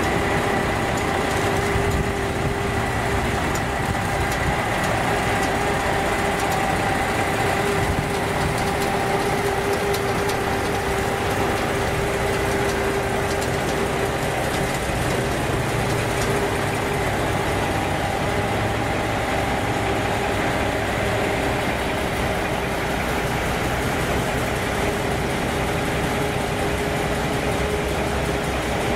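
Heavy diesel engines of Kenworth prime movers idling and running at low speed as the trucks roll slowly past. It is a steady engine drone with a steady whine over it.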